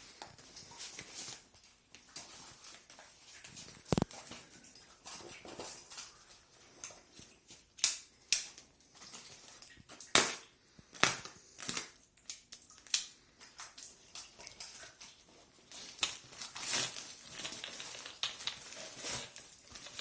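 Irregular clicks, knocks and crinkling of parts and packaging being handled, with a few sharper clacks spread through it.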